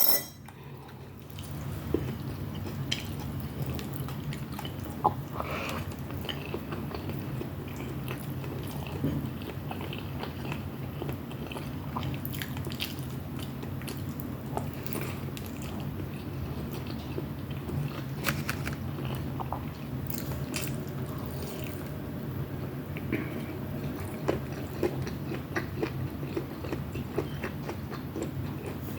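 A person chewing food close to the microphone, with short mouth clicks and bites scattered throughout. A steady low hum runs underneath.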